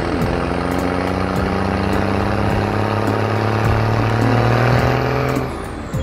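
Truck engine sound effect: a steady engine drone that drops away about five and a half seconds in.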